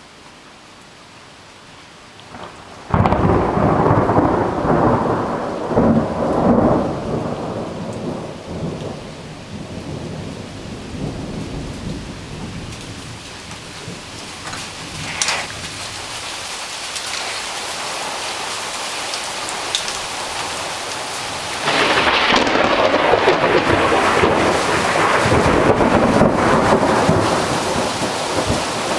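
Steady rain hiss, then a sudden loud thunderclap about three seconds in that rumbles on and slowly fades over the next ten seconds. A second loud peal of thunder breaks in about two-thirds of the way through and keeps rumbling to the end.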